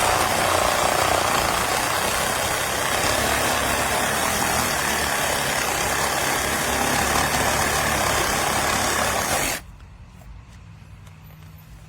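Cordless reciprocating saw running and cutting with a steady, noisy buzz that stops abruptly about nine and a half seconds in.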